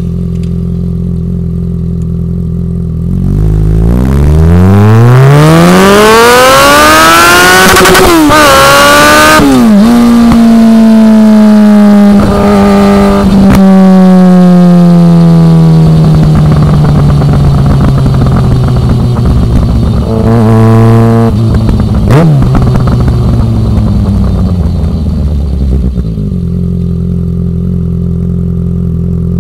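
Yamaha XJ6's inline-four engine through a Willy Made Firetong aftermarket exhaust: idling, then revving up hard with two quick gear changes a few seconds in. The pitch falls away slowly as it eases off, there is a short throttle blip past the middle, and it settles back to idle near the end.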